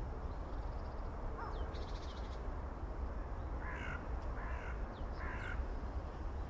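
Three crow caws, a little over half a second apart, a little past halfway, over a steady low outdoor rumble. About two seconds in, a small bird gives a short high trill.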